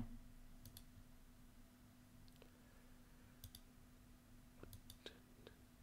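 Near silence with a faint steady low hum, broken by a few faint, scattered clicks of a computer mouse, most of them in the second half.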